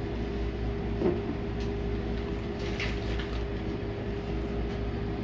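Steady room hum with a soft tap about a second in and faint rustling a little before the middle, as the model kit's paper instructions and plastic parts are handled.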